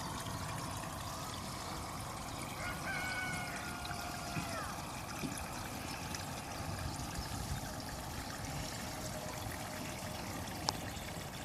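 Garden hose running, water pouring and trickling steadily onto a bed of broad beans. About three seconds in, a drawn-out call with a dip at its end sounds in the background, and a single sharp click comes near the end.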